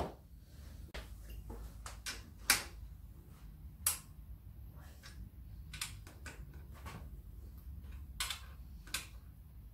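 Hand socket ratchet clicking in short runs on engine bolts, with scattered sharp metal clinks and knocks; the loudest knock comes about two and a half seconds in.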